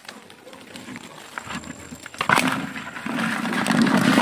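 Rustling and brushing through grass and undergrowth on foot, with a sharp knock about two seconds in, followed by louder close handling noise.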